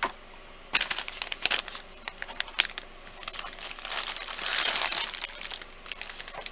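Plastic packaging bag crinkling and crackling as it is handled and opened: scattered sharp crackles at first, then a denser run of crinkling from about three seconds in.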